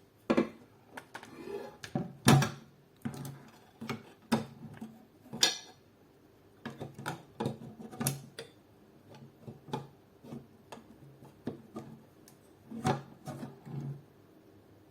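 Irregular clicks and knocks of metal parts as an E&L airsoft AK's gearbox is worked back into its receiver, the loudest knock a little over two seconds in.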